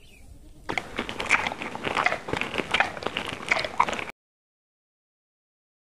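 Close handling noise of small plastic toy animals being pushed over gritty sand against a plastic trough: dense crunching and crackling with sharp clicks, starting about a second in and cutting off abruptly.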